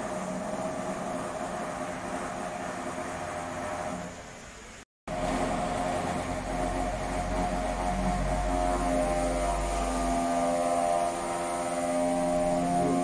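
Construction machinery engine running steadily with an even hum. The sound cuts out completely for a moment about five seconds in, then comes back louder with a deep rumble that fades out around ten seconds in.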